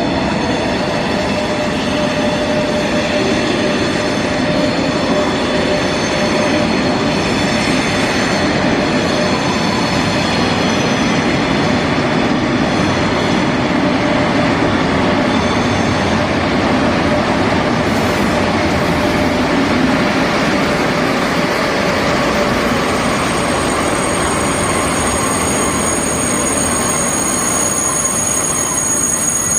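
Ouigo high-speed train rolling slowly into the station with a steady rumble. High-pitched brake and wheel squeal sets in about three quarters of the way through as it slows.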